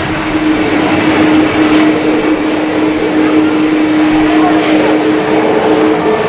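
Jet engines of an Air China Airbus A330-300 descending on final approach: a steady rushing noise with a steady low hum tone.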